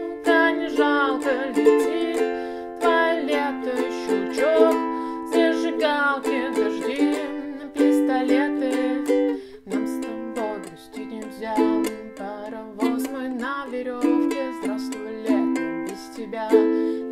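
Ukulele strummed in a steady down-down-up-up-down-down-down-up pattern through a song's chords, with a woman's voice singing along.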